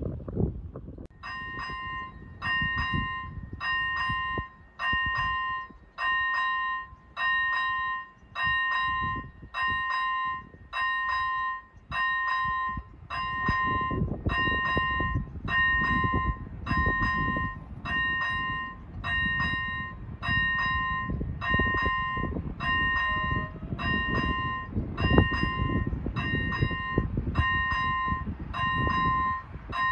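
Railway level-crossing warning bell starting about a second in and ringing evenly, about three strokes every two seconds, as the crossing activates to warn of an approaching train.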